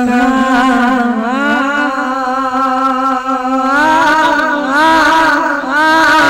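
Man singing a naat, an Urdu devotional song, holding long ornamented notes that bend up and down without clear words.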